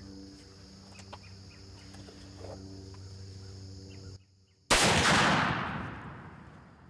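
A single muzzleloader rifle shot, sudden and very loud, about four and a half seconds in, dying away over about a second and a half.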